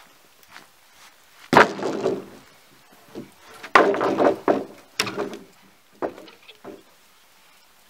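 Old wooden floorboards dropped onto a pile of planks, banging and clattering: a loud crack about a second and a half in, a cluster of knocks and rattles a couple of seconds later, then a few smaller knocks.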